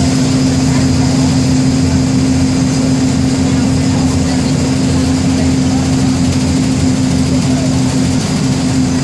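MWM 6.12 TCE six-cylinder inline turbodiesel of a Volksbus 17-230 EOD bus running at a steady, unchanging speed.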